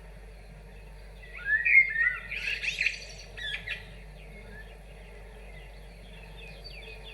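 A songbird singing: one loud phrase of quick, high chirping notes lasting about two and a half seconds, starting about a second in, followed by a few fainter notes.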